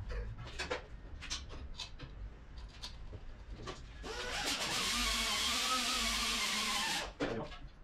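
Scattered clicks and knocks of hand tools on an engine block, then about four seconds in a power tool runs for about three seconds, its pitch wavering slightly, before stopping suddenly.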